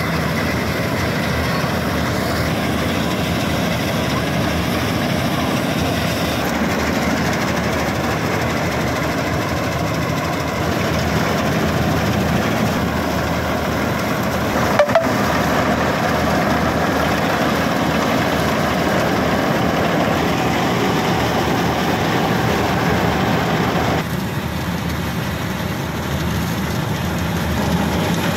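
Dasmesh 912 combine harvester on a John Deere tractor running steadily while it cuts and threshes rice, its engine and threshing machinery making a dense, even mechanical noise. There is a brief sharp knock about halfway through.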